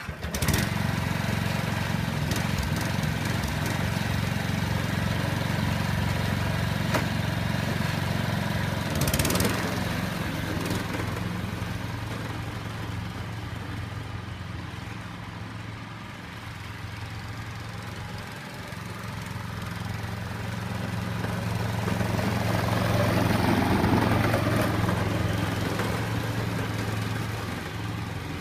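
Small petrol engine of a ride-on lawn mower catching right at the start and then running steadily while the mower is driven across the lawn, fading as it moves away and growing louder again as it comes back. A brief clatter about nine seconds in.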